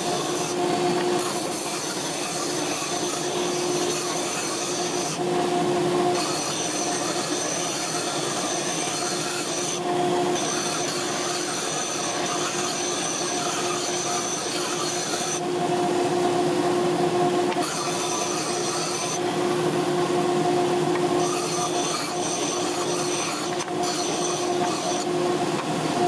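Disc sander running with a steady hum while a wooden block is pressed against the spinning sanding disc; the grinding rasp of wood on abrasive comes and goes several times as the piece is pressed on and eased off.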